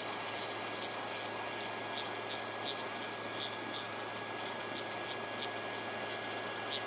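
Hot air rework station blowing steadily while reflowing surface-mount solder joints: an even airy hiss with a faint steady high whine.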